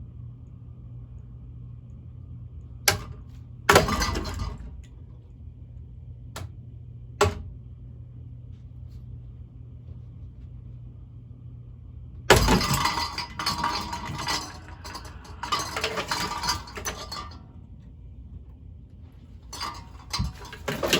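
Cheap ceiling fan running with a steady motor hum while its loose blades knock a few times. About twelve seconds in comes a long, loud crash of breaking and clinking parts, and the hum cuts out. More clattering follows near the end.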